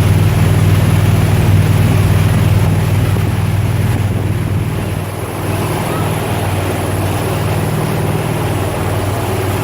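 Steady engine and road noise inside a moving 1994 Dodge B350 camper van, a low hum that eases slightly about halfway through.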